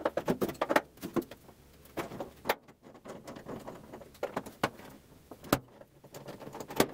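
Irregular metallic clicks and clanks of hand tools working on the fuel tank's half-inch mounting bolts in a Triumph Spitfire's trunk, with two sharper knocks near the end.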